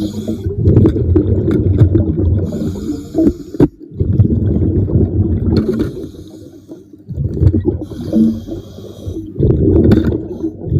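Diver breathing underwater through a regulator: a hissing inhale alternating with the bubbling rumble of exhaled air, about three breaths.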